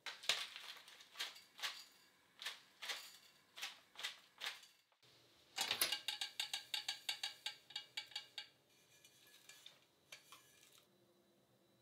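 Dried small shrimp in a small stainless steel pan: a run of dense, rapid light crackling and rattling, then a faint rustle and a few light taps as they are tipped out into ceramic bowls. Before that, a series of sharp, separate clicks and taps about two a second.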